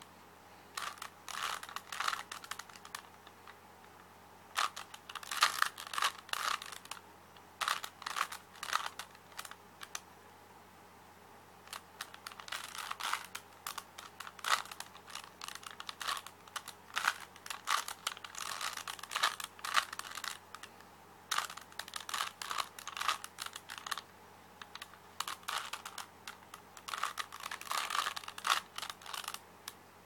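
Plastic Rubik's cube being turned by hand: fast runs of clicking as the layers are twisted, a few seconds at a time with short pauses between runs.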